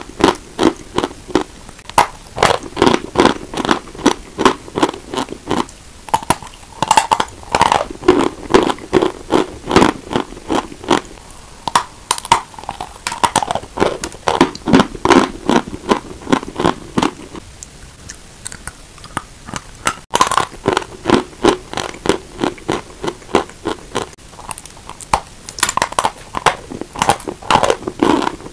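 White chalk bitten off and chewed, a run of sharp dry crunches several times a second, broken by short pauses between bites.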